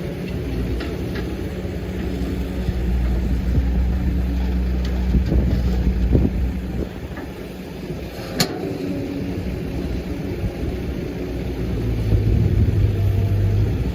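Diesel engine of a working excavator running under changing load, its low note shifting as the machine works, with small clicks and one sharp knock a little past eight seconds in.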